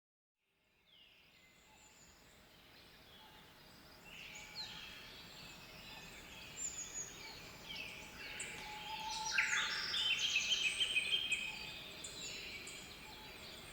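Birds chirping: many short, quick calls overlapping, fading in from silence, busiest and loudest a little past the middle, then thinning out.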